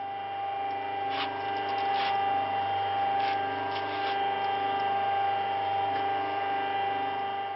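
A clay pug mill running as it extrudes a column of clay: a steady motor-and-gearbox whine over a low hum, with a few short scrapes in the first half.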